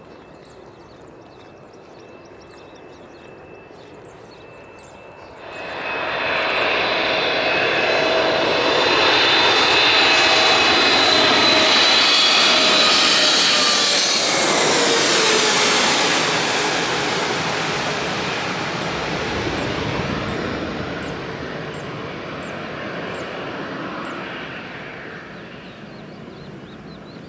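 Boeing 777-300 twin-engine jet on landing approach passing low overhead. The engine noise comes in suddenly about five seconds in and swells to a loud rush with whining tones, which drop in pitch about halfway through as the plane passes. It then fades away slowly.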